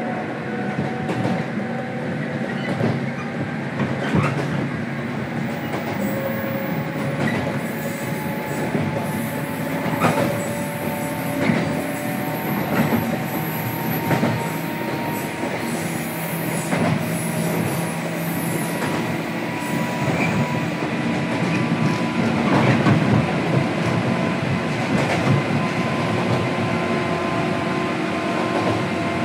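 Inside a JR Kyushu 103-series electric train's motor car under way: steady running noise with the whine of the traction motors and gears, several tones gliding slowly in pitch. Repeated clacks of the wheels over rail joints run through it.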